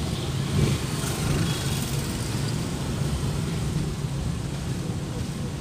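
Steady engine hum and road noise inside a moving sedan's cabin.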